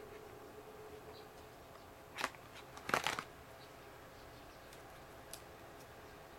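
Handling noise of plastic packaging: two short rustles about two and three seconds in as an electrode pad is lifted from its clear plastic tray, with a few faint ticks.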